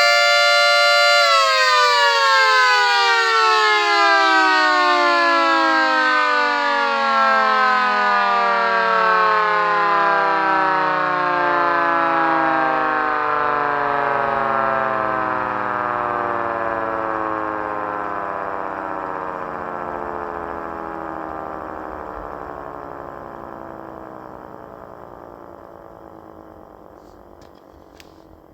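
Scale-model Federal Signal Thunderbolt 3T22A siren sounding at full speed for about a second, then winding down in one long falling wail that fades away. The winddown is quicker than normal because the rotor's motor has badly worn bearings.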